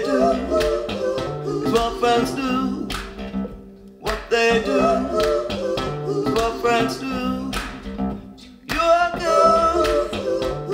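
A vinyl record of an acoustic duo song played over hi-fi loudspeakers and picked up by a microphone in the room: acoustic guitar with a female voice singing over it. The music dips briefly twice, between phrases.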